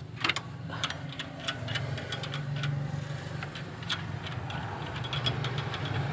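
Toyota Rush engine idling with a steady low hum, with scattered clicks and taps from hands and tools working on the engine. The idle is still rough: the shaking at idle has not been cured yet.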